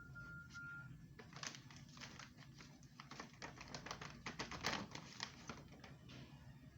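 A few short, even beeps at one pitch, then about five seconds of rapid, irregular clicking and crinkling.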